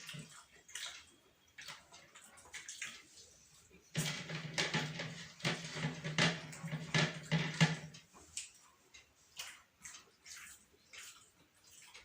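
Eating sounds from people working through a plate of chicken biryani: a string of short wet clicks and smacks, thickest and loudest from about four to eight seconds in.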